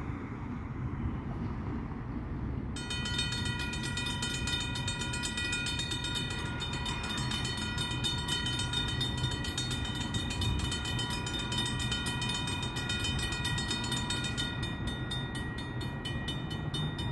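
Railroad crossing warning bell starts ringing about three seconds in, a fast, steady, repeating ring: the crossing signals have activated for an approaching train. A low rumble of traffic runs underneath.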